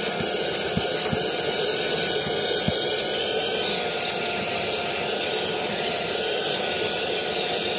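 Vacuum cleaner running steadily while its nozzle on a ribbed hose is drawn over car floor carpet, with a faint steady whine over the rush of air. A few faint low knocks come in the first three seconds.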